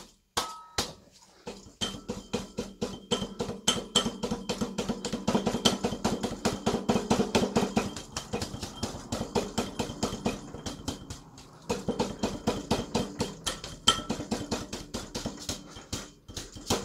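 Rapid hand slaps on a Ford Essex V6 harmonic balancer, about five a second, struck alternately on its left and right sides to work the tight-fitting balancer onto the crankshaft snout. The slapping pauses briefly about eleven seconds in, then carries on.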